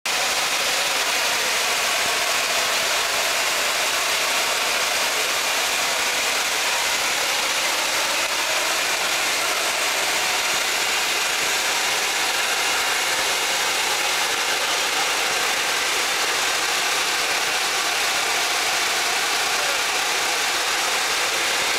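Steady, unbroken rushing hiss of a high-volume water jet flowing from an OM-1250 oscillating fire water monitor.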